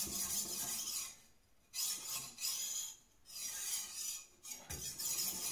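Steel knife edge being ground on a wet Naniwa Chosera 400-grit waterstone: an even, smooth scraping in about four sharpening passes, broken by three short pauses.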